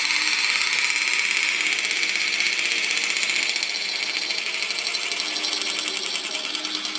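Hurricane balls (two small balls glued together) spinning very fast, making a steady high whirring rattle that slowly fades as they lose speed.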